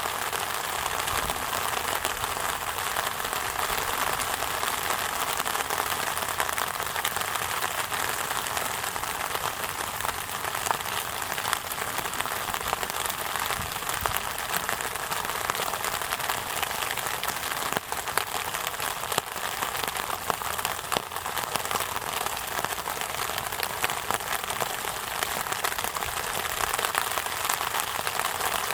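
Steady rain falling: an even hiss made of many small drop ticks.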